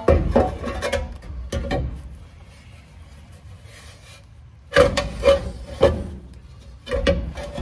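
Rusty steel transmission crossmember clanking and scraping against the truck's frame and transmission as it is shoved and wiggled into position by hand, in several short bursts of knocks with quiet gaps between, the loudest run of knocks about five seconds in.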